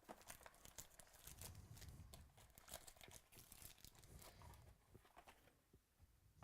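Faint crinkling and tearing of trading-card pack wrappers and plastic packaging, with small clicks from cards being handled. It thins out after about five seconds, and one sharp click comes at the very end.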